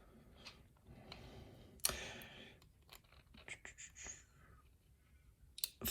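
Faint scattered clicks and ticks of small lock pins and springs being handled as a pin-tumbler lock is taken apart. There is a sharper click about two seconds in and a quick cluster of ticks between three and four seconds.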